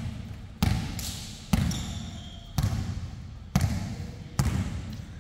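A basketball being dribbled, bouncing off the floor about once a second, five bounces in all, each followed by a ringing echo.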